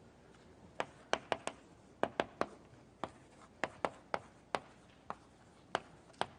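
Writing on a board: a string of irregularly spaced sharp taps and short strokes, about fifteen in all.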